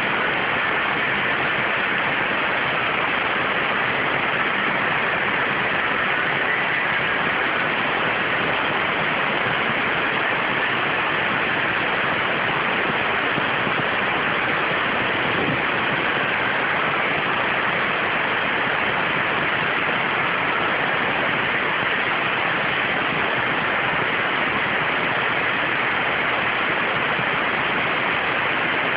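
CNC waterjet cutter's high-pressure water jet cutting 0.6 mm stainless steel sheet: a loud, steady hiss.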